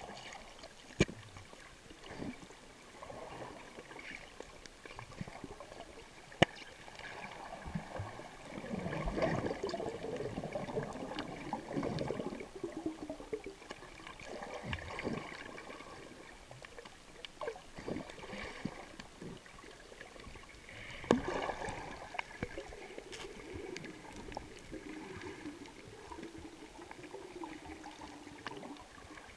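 Underwater water noise, heard from below the surface: muffled sloshing and gurgling that swells and fades, with a few sharp clicks, the loudest about six seconds in.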